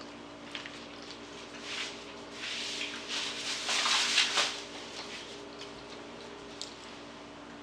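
Off-camera rustling of food packaging being thrown in the trash, loudest from about two to four and a half seconds in, with a few light clicks, over a steady hum.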